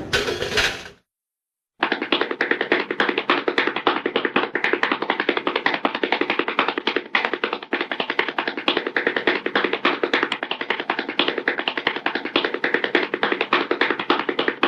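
Rapid, continuous tapping, many sharp taps a second, starting about two seconds in after a brief silence and running on without a break.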